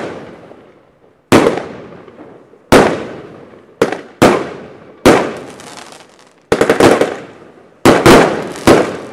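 Bonfireworks 'Earthquake' firework cake firing shot after shot: loud aerial bursts about a second apart, each bang trailing off in a long echo. A quick rattle of cracks comes about six and a half seconds in.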